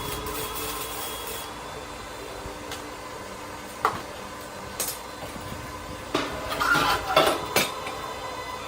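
Metal parts and tools clanking: a single sharp clink about four seconds in, another a second later, then a quick run of louder clanks and knocks around six to seven and a half seconds.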